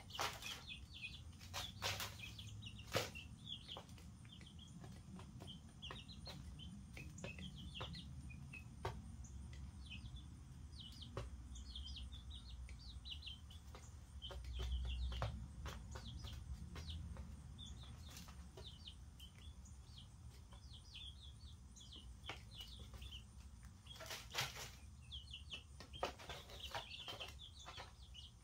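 Young chicks, a couple of weeks old, peeping in many short high chirps, with scattered sharp taps and clicks among them. A brief low rumble comes about halfway through.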